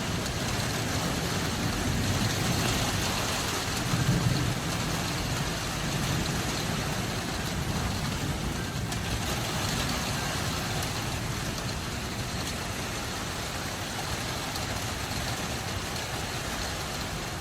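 Steady rain falling during a thunderstorm, an even rushing noise, with a brief low swell about four seconds in.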